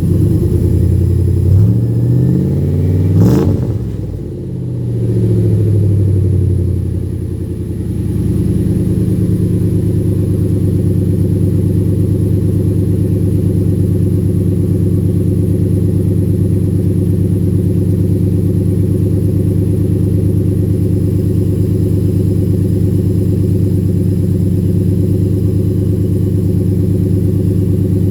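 Ford engine running just after a hard cold start at about 0 degrees. It is revved up once about three seconds in, falls back unevenly, and settles into a steady idle.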